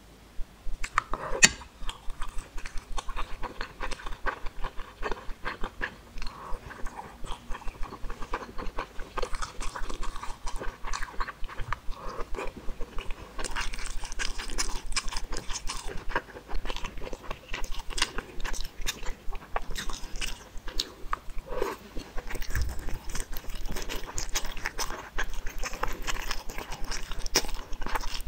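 Close-miked eating sounds of a person chewing noodles and fishballs: many small wet clicks and smacks of the mouth, irregular and continuous. They get denser and crisper about halfway through.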